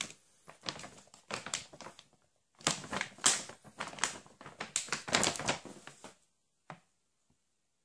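Scissors cutting open a dog-biscuit bag: a quick run of sharp snips and clicks that stops about six seconds in.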